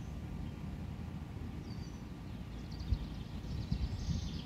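Wind rumbling on the microphone, with a small bird chirping high twice, then a rapid high trill in the second half.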